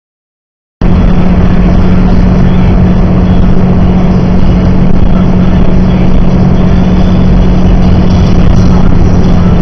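Loud, steady road and engine noise of a car driving on a snowy highway, heard inside the cabin, with a constant low hum; it starts abruptly about a second in.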